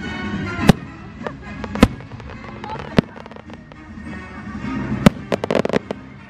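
Aerial fireworks going off: four sharp bangs about a second apart, then a quick run of crackling pops near the end.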